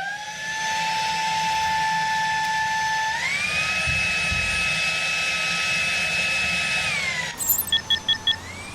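Vacuum cleaner motor switching on with a quick rising whine and running steadily. Its pitch steps up about three seconds in and drops back near the end, followed by a few short beeps.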